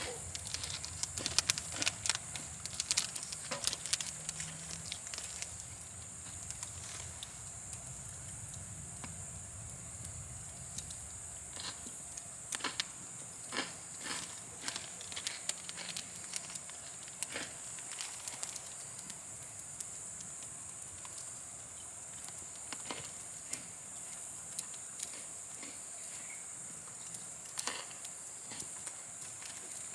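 Wood campfire crackling, with irregular sharp pops that come thickest in the first few seconds, over a steady high-pitched hiss.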